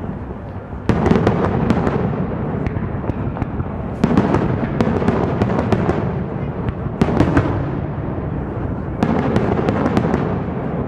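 Aerial firework shells bursting four times, about every two to three seconds. Each burst is followed by a spray of crackling pops.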